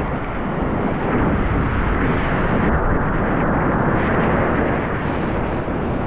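Ocean surf washing and breaking around the wader, with a steady low wind rumble on the microphone.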